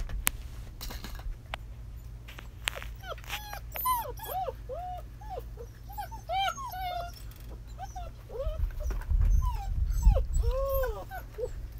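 Six-week-old German Shepherd puppies whimpering and yipping in many short, high, arching cries in quick succession. A few sharp clicks come in the first seconds, and a low rumble swells near the end.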